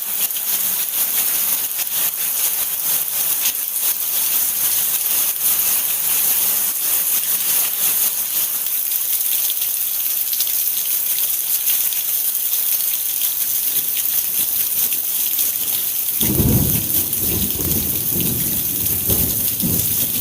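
Steady rain falling, a dense hiss with many small drop spatters. About sixteen seconds in, a low rumble of thunder comes in and keeps rolling.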